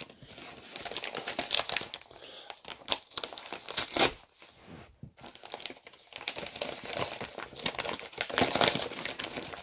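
A mailed package being opened by hand: packaging crinkling, rustling and tearing in irregular bursts, busiest near the end.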